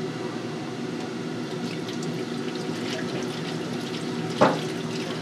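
Cooking oil pouring in a steady stream from a carton onto the wire rack of an empty stainless-steel deep fryer. A single sharp knock sounds about four and a half seconds in.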